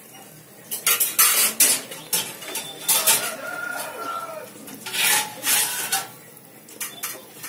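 Steel kitchenware clinking and scraping in short bursts, with a rooster crowing once about three seconds in.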